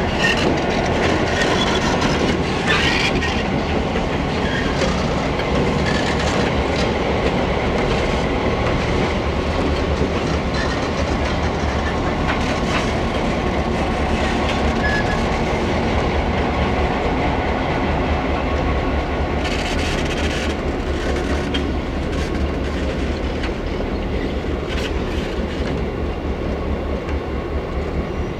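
Several EMD SD9 diesel locomotives rolling slowly past, their engines giving a steady low drone while the wheels click over the rail joints. The sound eases off a little toward the end as the units move away.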